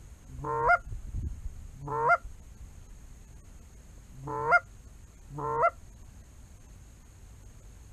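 Four loud Canada goose honks in two pairs, each a short rising moan that breaks sharply upward at its end.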